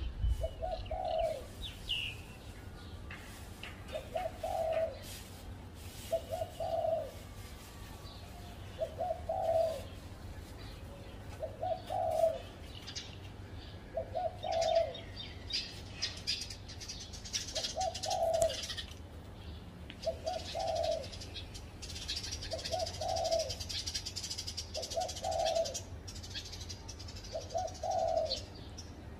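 Spotted dove cooing over and over, a short low coo about every two to three seconds. Small birds chirp faintly in the background, more in the second half.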